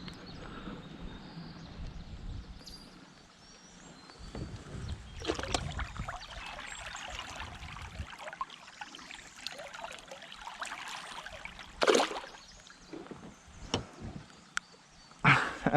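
Water splashing and sloshing at a kayak's side while a hooked smallmouth bass is fought, with a sharper splash about twelve seconds in and a few light clicks near the end.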